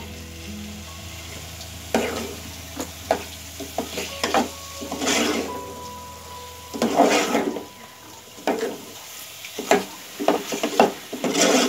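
Steel ladle stirring and scraping a thick potato curry in an aluminium pot, in about eight irregular strokes, over a faint sizzle as the masala fries.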